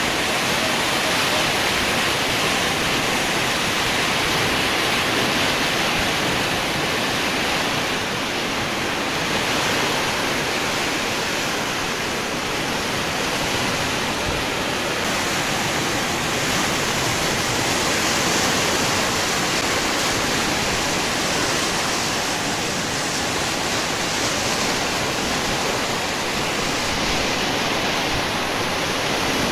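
Fast-flowing flash-flood water rushing steadily, an even, unbroken rush of water.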